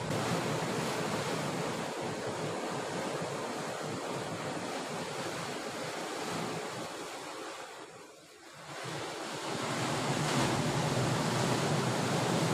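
Sea surf washing against a rocky shore, a steady rush that dips briefly about eight seconds in and then swells again.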